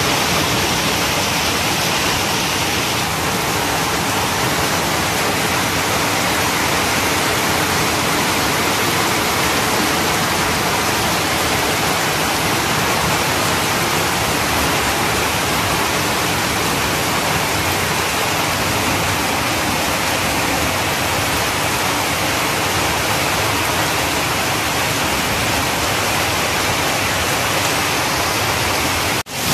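Heavy rain falling steadily, a dense even hiss, with a brief break near the end.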